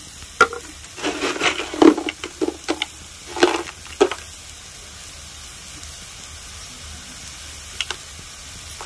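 A quick run of clicks and knocks in the first four seconds as a plastic jar's lid is opened and salt is taken out by hand. Under it, masala paste sizzles steadily as it fries in a steel kadai on a gas stove.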